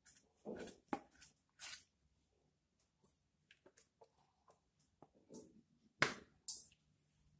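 Soft scrapes, clicks and light knocks of a steel mixing bowl and spatula as thick cake batter is scraped out and poured into a cake tin; the loudest is a sharp knock about six seconds in.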